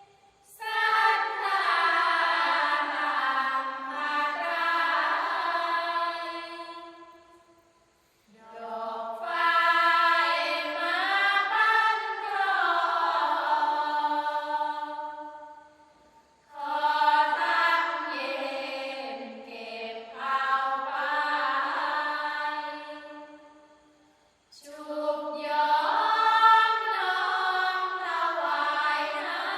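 Sorapanya, Thai Buddhist devotional chanting, sung unaccompanied by a vocal group in four long, melismatic phrases, each followed by a brief pause for breath.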